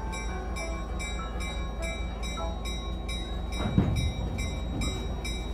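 Train moving slowly, a steady low rumble under an even run of ringing strikes, about three a second, typical of a locomotive bell. A single loud clank stands out about four seconds in.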